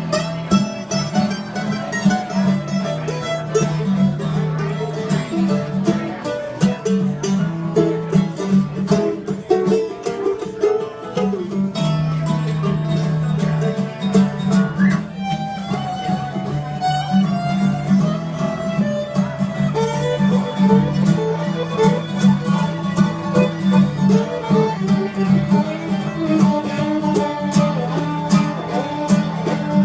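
Acoustic string band playing live: fiddle over guitar and banjo in a bluegrass style.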